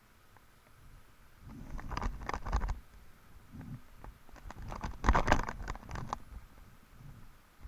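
Footsteps on dry, matted grass with rustling, in two bursts about three seconds apart.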